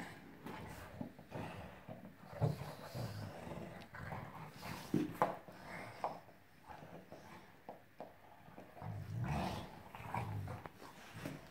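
Two dogs growling in irregular rough bursts as they tussle over a chew bone, louder around a quarter, halfway and near the end.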